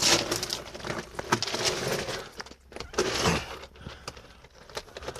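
Someone crawling over the rocky floor of a small cave: irregular scuffs and scrapes with sharp clinks and crunches of loose rock and broken glass underfoot and under hand.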